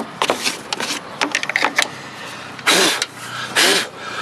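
Dry nest grass and seeds rustling and clicking as they are picked out of the fins of a lawnmower engine's flywheel fan. From about two and a half seconds in come three loud, short rushing bursts, about a second apart.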